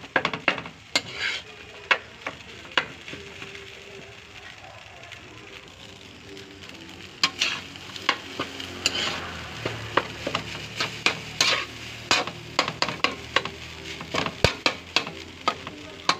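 Metal spatula scraping and knocking against a metal wok while stir-frying rice, over a sizzle. The strokes are sparse for a few seconds, then come quick and close together from about seven seconds in.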